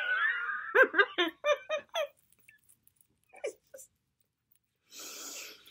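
A woman's voice makes a drawn-out wailing sound that glides in pitch, then a quick string of short pitched vocal sounds, about five a second. After a pause there is a soft breathy exhale near the end.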